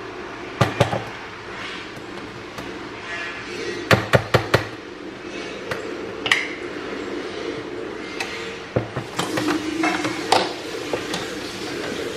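Sharp knocks and clatter of coffee-making gear being handled, loaded and set down, with a quick run of four knocks about four seconds in.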